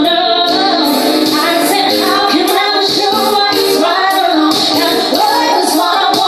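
A woman sings lead into a microphone over a live band playing a pop song with a steady beat.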